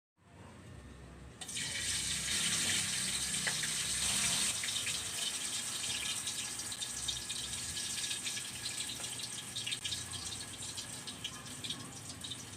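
Potato rings sizzling in hot corn oil: a steady hiss with many small crackles that jumps up suddenly about one and a half seconds in, as the food goes into the oil, then slowly eases.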